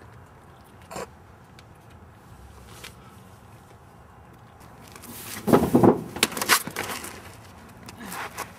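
Quiet handling noise with a single click about a second in, then, about five seconds in, a loud burst of thumps and scuffling lasting about two seconds.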